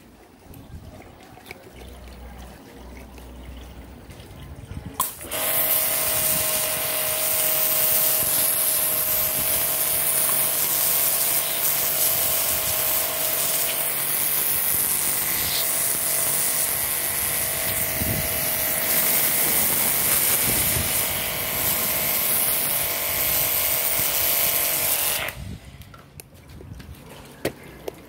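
Mini electric pressure washer (car-wash pump) switched on about five seconds in: its motor and pump run with a steady whine while the jet of water sprays from the lance with a loud hiss, then it stops suddenly about 25 seconds in. This is a test run of the motor after rewinding its coil.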